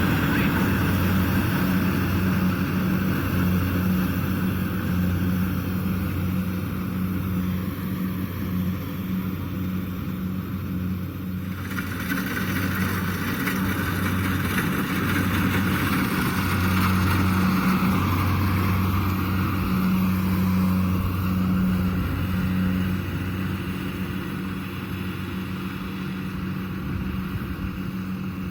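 Kubota DC70 Plus combine harvester's diesel engine running steadily, a constant low hum under a mechanical hiss.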